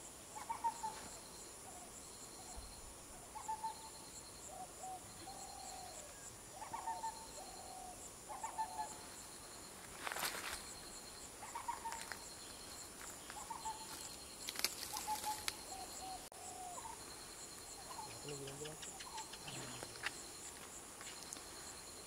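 Outdoor wild ambience: insects shrilling steadily, with a short chirping trill repeating about once a second, under repeated short bird calls. A few crackling rustles come about ten seconds in and again around fifteen seconds.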